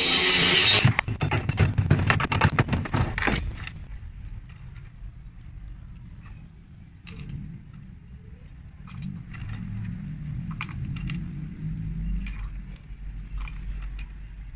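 A cordless angle grinder briefly cuts through a coiled steel wire, then a quick run of metallic clinks follows. After that come scattered clinks of small steel rings being handled and hooked together into a chain.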